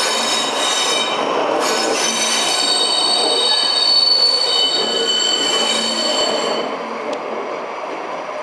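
SNCF BB 67400 diesel-electric locomotive running light at low speed, its wheels squealing against the rails in several high steady tones over the engine's running. The squeal fades out near the end, leaving the engine and rail noise.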